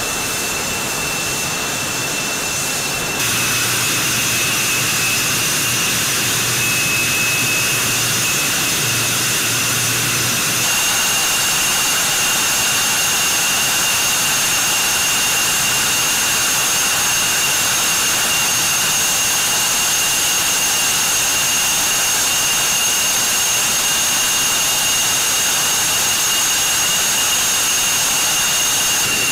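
CF-188 Hornet jet engines running on the ground: a steady jet whine with high, constant ringing tones over the rush of the exhaust. The level steps up about three seconds in and again about ten seconds in.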